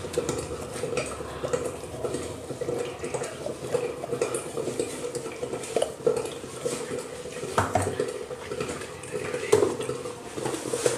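A spoon scraping and clinking against a metal kitchen vessel in many small irregular strokes while ground masala paste is scooped out, over a faint steady hum.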